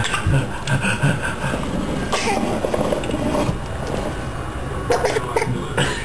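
A toddler's short vocal bursts and laughs, about 2 s in and twice near the end, over the low rumble of a plastic push-walker toy's wheels rolling on a hardwood floor.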